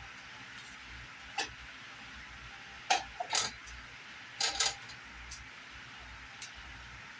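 A few sharp clinks and knocks of kitchen items being handled, in small clusters, over a steady background hiss.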